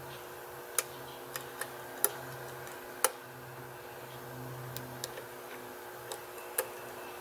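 Lock pick working the pins of a challenge lock during single-pin picking under light tension: a string of about ten sharp, irregular metallic clicks, the loudest about two and three seconds in, over a faint steady hum.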